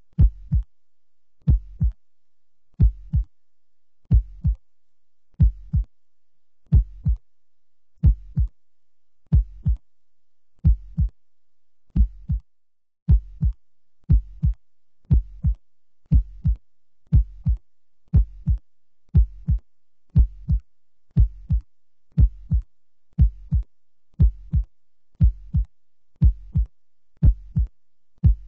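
Heartbeat sound effect: a deep double thump repeating about every 1.3 seconds. It breaks off briefly about halfway, then resumes a little faster, about once a second.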